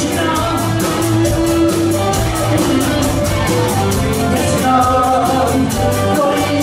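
Live rock band playing: electric guitars, bass guitar, drum kit and keyboard, loud, with a steady drum beat.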